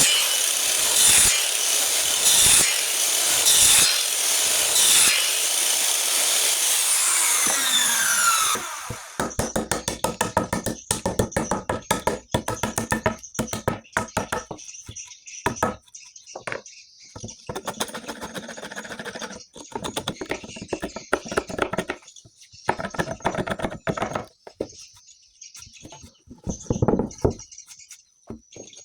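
A power saw cuts wood with a continuous loud whir, then winds down with a falling whine about eight seconds in. A long run of short, rapid scraping and knocking strokes on wood follows, thinning out and growing quieter toward the end.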